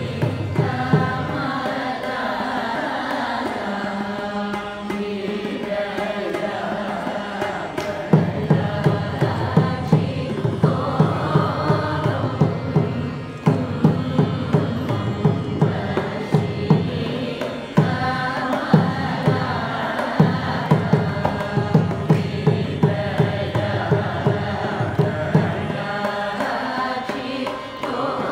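A group of voices sings a Carnatic kriti in raga Shankarabharanam in unison over a tambura drone. Mridangam strokes keep the rhythm and come in most strongly about eight seconds in.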